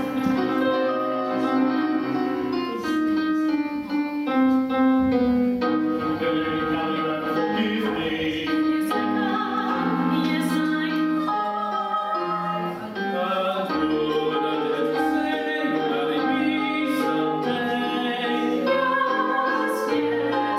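A small group of men and women singing held notes together in parts from their scores, with piano accompaniment.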